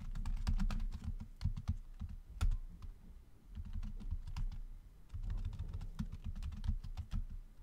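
Typing on a computer keyboard: irregular runs of key clicks, with a short pause about halfway through.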